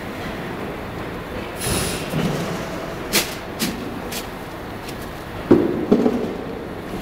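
Steady noise from meat-processing machinery, with scattered knocks and clanks. A short hiss comes about two seconds in, and louder knocks come near the end.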